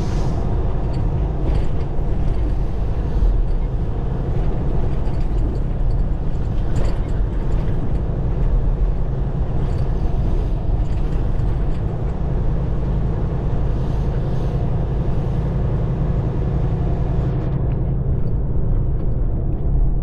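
Diesel engine of a semi truck running steadily as it is driven down the road.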